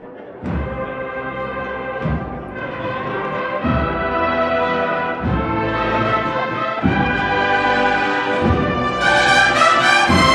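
Cornet-and-drum band (banda de cornetas y tambores) playing a Holy Week processional march. Sustained cornet chords sound over a low bass-drum beat about every second and a half. The band swells louder with higher notes near the end.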